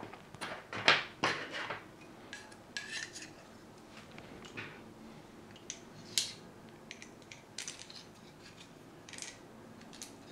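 Carbon-fibre drone frame plates and arms clicking and clattering together as they are handled and fitted with standoffs by hand: scattered light knocks, the loudest about a second in.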